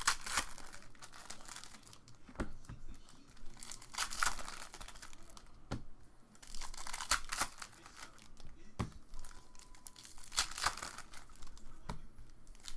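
Foil trading-card pack wrappers being torn open and crinkled, in a series of short rustling bursts with a few sharp clicks between them.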